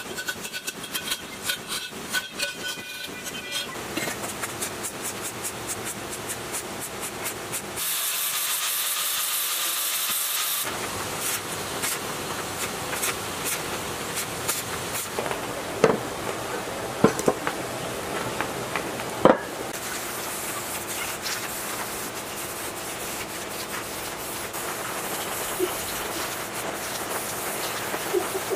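Metalworking on steel parts: quick rasping strokes with rapid small clicks on a rusty steel pipe, then a hiss lasting about two and a half seconds. After that comes a long stretch of steady crackling welding with a few sharp knocks, and an aerosol spray can hissing near the end.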